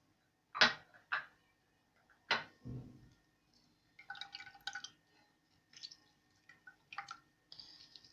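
Kitchen handling sounds: three sharp knocks in the first few seconds, then lighter ringing clinks of utensils against cookware, with liquid dripping.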